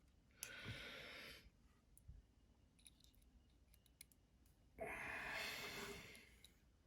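Two long breathy exhales, like sighs, one near the start and one about five seconds in, with faint small clicks between them from work on the knife's screws.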